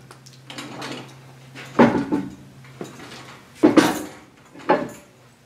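Heavy steel parts of an excavator boom hydraulic cylinder knocking and clanking together as the rebuilt piston rod is lined up with the cylinder barrel. There are three loud knocks, at about two, four and five seconds in, with lighter ticks between them. Under them runs a steady low hum that stops a little past halfway.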